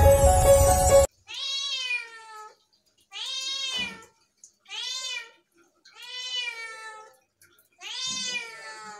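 Intro music cuts off about a second in, then a young tabby-and-white kitten meows five times, about a second apart, each meow rising and then falling in pitch.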